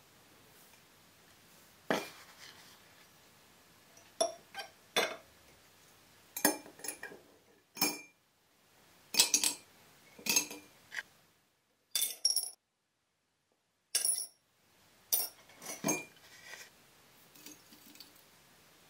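Glass jars set down on a wooden worktop and small die-cast metal and plastic toy-car parts dropped into them: a dozen or so separate clinks and knocks, each with a brief ring. Fainter scrapes near the end as powder is spooned into a jar.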